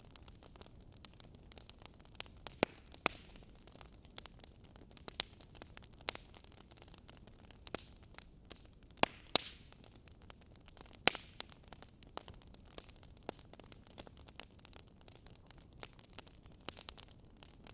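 Wood fire crackling in a fireplace: irregular sharp pops and snaps, a few louder ones, over a faint steady hiss.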